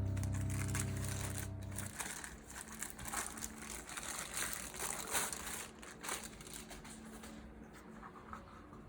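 Packaging crinkling and rustling as a new keyboard is unboxed, irregular and crackly, thinning out near the end. Background music fades out during the first two seconds.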